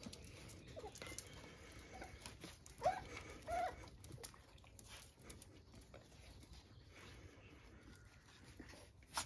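Puppies tussling with an adult dog: a couple of short, high puppy yelps about three seconds in, over faint scuffling of paws on a coir doormat. A single sharp click near the end.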